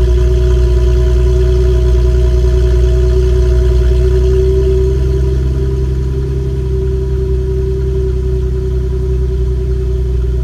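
Car engine idling steadily, heard at the exhaust tailpipe, with a deep, even exhaust note. The level eases down slightly about five seconds in.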